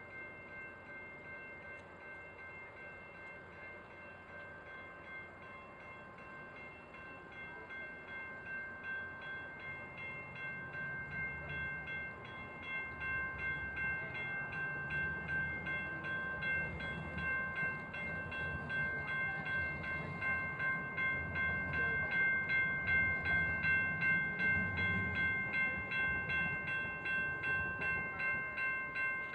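Grade-crossing warning bell ringing in a fast, even rhythm, while a light-rail trolley rumbles past, the rumble growing louder from about ten seconds in.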